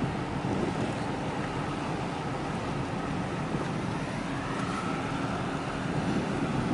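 Wind buffeting the microphone over a steady low rumble and the wash of harbour water.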